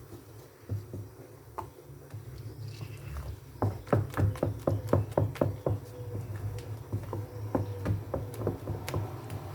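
A spoon beating moi-moi batter in a bowl, knocking against the bowl's side in a rapid, regular run of strikes from about a third of the way in, about four or five a second, then lighter.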